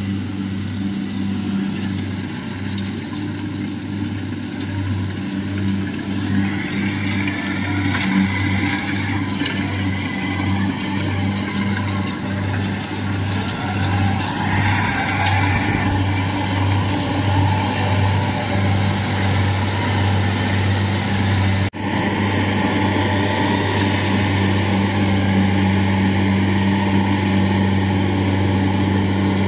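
Kubota combine harvester's diesel engine running steadily under load as it cuts and threshes rice: a continuous low hum with a slight regular pulse. It drops out for a moment about two-thirds of the way through.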